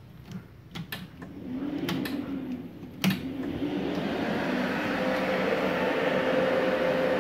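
MIG-MAG 350N G-KR inverter welding machine just switched on: a few clicks, then its cooling fan spins up over a couple of seconds and runs steadily with a faint hum.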